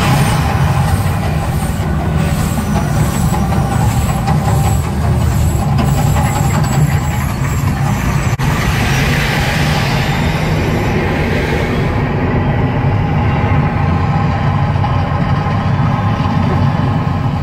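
Mirage volcano show eruption: gas flames bursting with a loud rush at the start over a deep, steady rumble. A hissing rush of flame swells again around the middle, and the higher hiss fades in the last few seconds while the rumble goes on.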